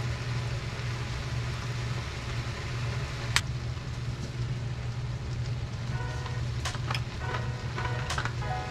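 Shredded cabbage, chicken and vegetables sizzling in a hot stainless steel skillet over a steady low hum, with a single sharp click about three seconds in. Background music comes in over the last few seconds.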